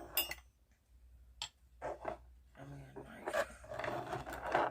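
Close-up eating sounds of a mukbang: chewing and wet mouth noises, with a few sharp clicks in the first half and denser, muffled chewing with a low murmur over the second half.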